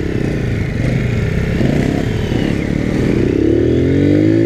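Small motorcycle engine running as the bike rides along, its pitch rising steadily over the last second and a half as it accelerates.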